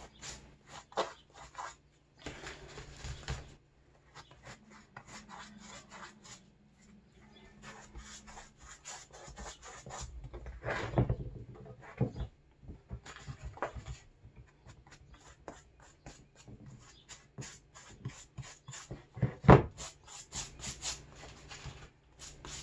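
Pastry brush working butter over the crust of a hot, freshly baked loaf: irregular scratchy brushing strokes, with a couple of louder knocks in the middle and near the end as the loaf is handled on the wooden board.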